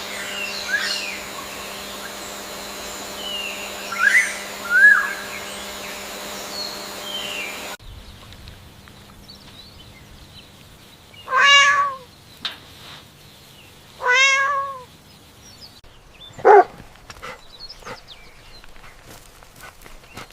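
A cat meowing: two drawn-out meows about a second long, a couple of seconds apart, then a shorter falling call. Before them, short high chirps over a steady hum, which cuts off abruptly.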